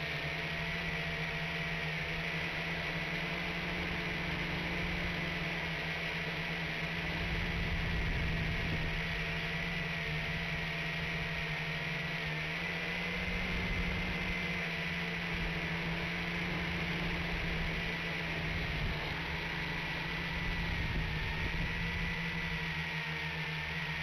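WLtoys V959 mini quadcopter's brushed motors and propellers whirring steadily, close to the onboard camera's microphone, with a thin high whine that wavers slightly in pitch as the throttle shifts.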